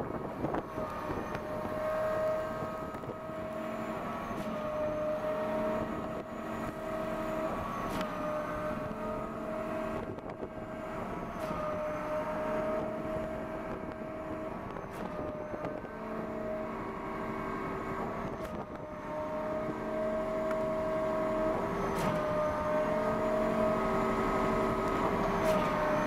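Truck-mounted concrete pump working: a steady hydraulic whine broken by a short knock about every three and a half seconds as the pump changes stroke.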